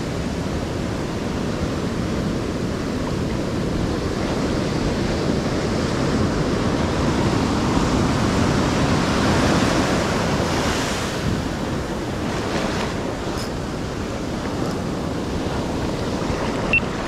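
Ocean surf washing ashore, a steady rush that swells about halfway through and eases off again, with wind buffeting the microphone.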